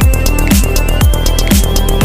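Electronic dance music with a steady kick drum about twice a second under a held synth melody that steps up in pitch about a second in.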